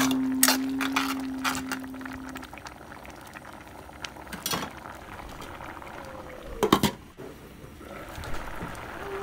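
Rice porridge (lugaw) bubbling at a boil in a stainless steel pot, with scattered soft clicks and a louder metallic clatter about two-thirds through as the pot lid is handled.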